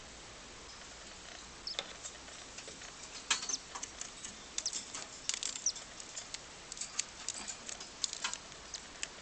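Newly hatched cockatiel chick calling: tiny, very short high peeps and clicks in irregular flurries, starting nearly two seconds in and coming more often from about three seconds on.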